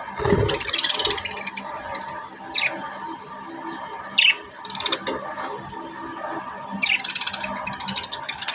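Budgerigars chirping and chattering: bursts of rapid chatter near the start and again near the end, with single sharp chirps every second or two in between, over a faint steady hum.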